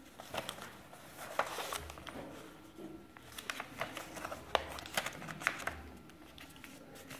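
A sheet of white paper being folded and creased by hand on a wooden table: irregular rustling with short, sharp crackles as fingers press and slide along the folds.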